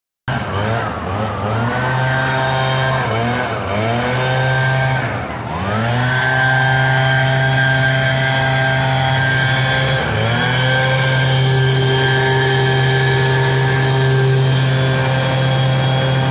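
Gasoline chainsaw cutting through the base of a tree trunk for the felling cut, its engine dipping in pitch and recovering several times in the first six seconds as it bogs in the wood, then holding steady at full revs.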